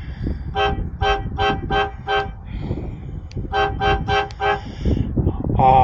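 Impact Train Horns five-horn train horn, run by a Ryobi battery and its own compressor, heard from about 100 feet away. It sounds a burst of five short toots, then after a pause four more. The horn pulses in short blasts rather than staying on while the remote's button is held.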